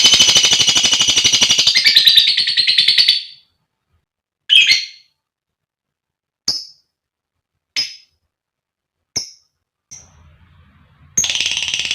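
Female lovebird calling: a high-pitched, rapid chattering trill for about three seconds, then five single sharp chirps spaced a second or so apart, and the fast chatter starts again near the end.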